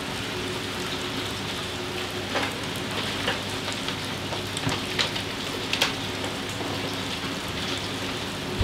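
Steady rain falling on the steel roof of a boat's cabin, a continuous hiss, with a few sharp clicks in the middle.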